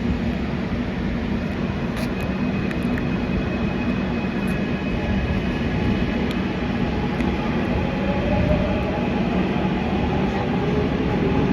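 Gwangju Metro Line 1 subway train running between stations, heard from inside the car: a steady, dense rumble of wheels on rail and running gear, with a faint motor whine that glides in pitch in the second half and the noise growing slightly louder.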